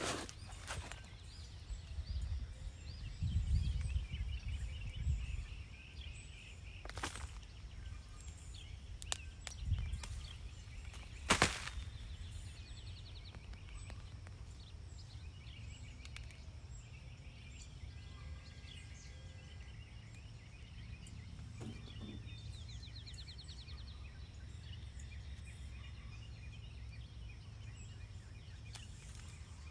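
Outdoor ambience: birds chirping faintly, a low rumble of wind on the microphone, and a few sharp clicks or knocks near the start.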